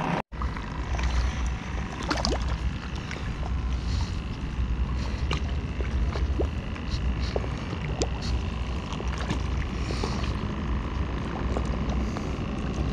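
Open-water ambience: a steady low wind rumble on the action camera's microphone, with small waves lapping and scattered light clicks and taps.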